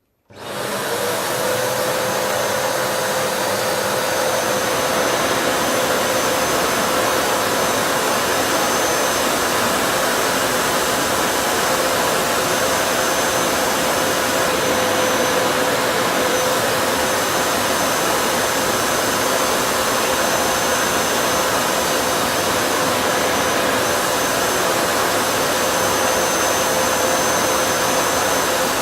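Kärcher SE 5100 spray-extraction vacuum cleaner switched on: the motor spins up within about half a second, then runs steadily with a constant whine.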